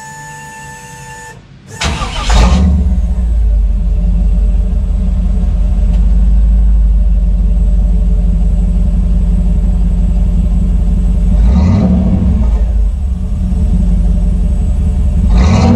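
A 1998 Chevy Silverado 1500 is started through its new Flowmaster 40 Series dual exhaust with axle turndowns. After a short steady tone, the engine cranks and catches about two seconds in, then settles into a deep, steady idle rumble. Near the end it is revved briefly twice.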